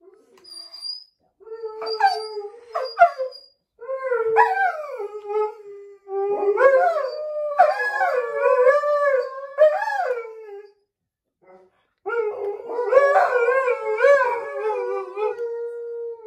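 Alaskan malamutes howling: long, wavering howls in four bouts with short breaks between them.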